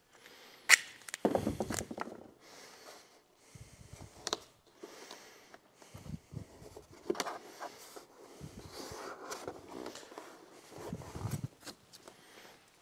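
Tape pulled off a roll in short ripping strokes and pressed down by hand onto a plastic trunk-lid liner, with scattered light knocks and rustles from handling the panel and wire.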